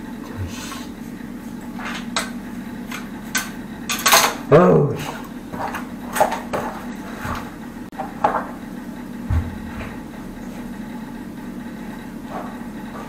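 Metal tool clinking and knocking against a wall angle valve and its pipe stub, in irregular clicks with a louder scraping clatter about four and a half seconds in, over a steady low hum.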